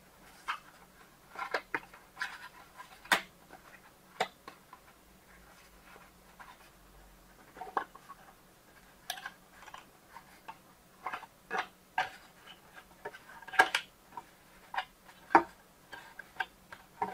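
Irregular clicks, taps and short rustles of packaging being handled as a sound card is worked free from its box.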